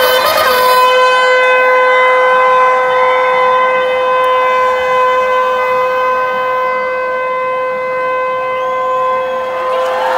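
A Border Security Force soldier's drawn-out word of command during the Wagah border flag ceremony. The loud shout is held on one steady pitch for about ten seconds and breaks off near the end, with the crowd's murmur under it.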